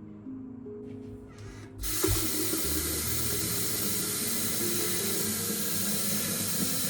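Kitchen tap running water into a sink: a steady rush that starts about two seconds in, over soft background music.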